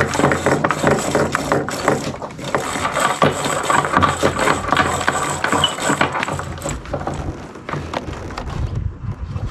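Junk sail's rigging being worked: lines running through blocks and battens knocking, a dense rattling clatter that eases off about seven seconds in.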